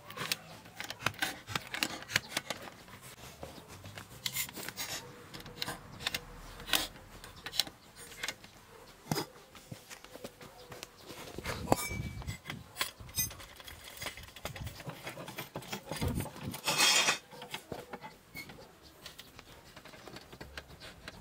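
Socket ratchet clicking in uneven runs as wheel bolts are tightened, among knocks and clatter of hand tools. A short, louder rattle comes about three-quarters of the way through.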